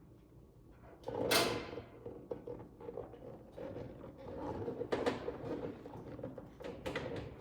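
Front spoiler studs popping as they shift against the body sheet metal while nuts are worked onto them: one sharp pop about a second in, then scraping and knocking, strongest near the middle. The studs are catching on the metal.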